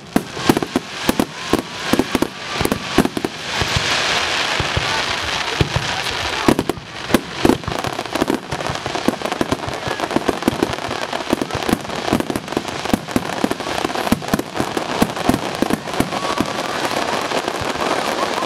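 Fireworks finale: aerial shells bursting in rapid, unbroken succession, sharp bangs overlapping one another, with a dense spell of crackling about four seconds in.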